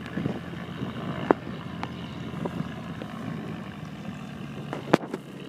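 Distant propeller plane's engines droning steadily on the runway, with wind buffeting the microphone. Two sharp clicks, about a second in and near the end.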